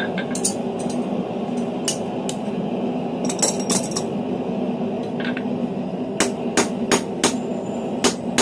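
Hand hammer striking a steel bar on an anvil: a few scattered metallic clinks at first, then a run of five steady blows near the end, about two or three a second. A steady low hum runs underneath.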